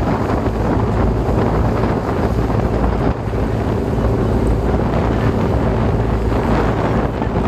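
Glass-bottom tour boat's engine running steadily, with wind buffeting the microphone.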